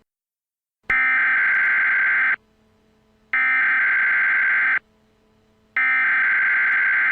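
Emergency Alert System SAME header: three identical bursts of shrill, warbling digital data tones, each about a second and a half long with about a second between them. This is the encoded header that opens an emergency alert broadcast.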